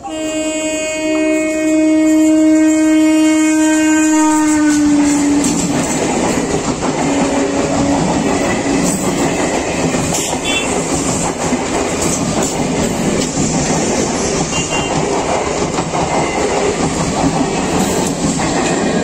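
Eastern Railway EMU suburban electric train sounding one long horn blast of about five seconds, the pitch dipping slightly at its end, then passing close by with a loud steady rush and clatter of wheels on the rails.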